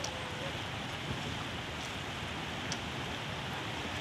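Steady rushing noise of wind and flowing floodwater, with a couple of faint ticks.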